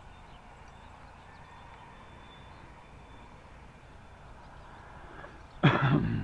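Faint, steady outdoor background with a thin high tone during the first half. Near the end, a sudden loud burst of noise cuts in and lasts about half a second.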